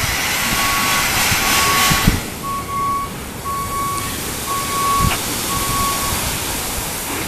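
Bottom-dump semi truck reversing, its backup alarm beeping about once a second until near the end. A loud hiss runs over the first two seconds and cuts off with a knock.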